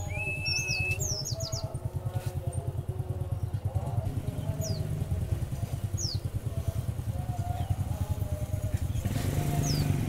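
A motorcycle engine idling with a steady, rapid low putter. Over it a white-eye (pleci) gives short, high, falling chirps: a quick run of them near the start, then single chirps every second or so.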